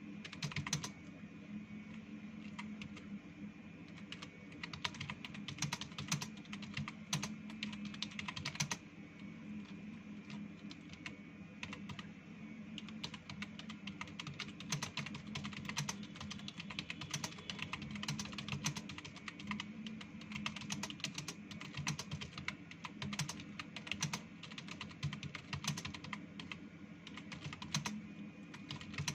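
Computer keyboard typed on continuously, a steady stream of key clicks over a low hum, during a timed typing speed test.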